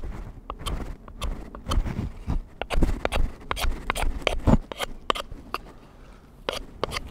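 Knife blade scraping the factory lacquer off a small hatchet's wooden handle: sharp scraping strokes in quick, uneven succession, a few a second, with some duller knocks from handling.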